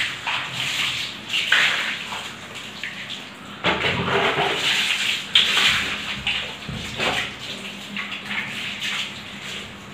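Water splashing and sloshing on a tiled bathroom floor in irregular bursts around a wet dog being washed.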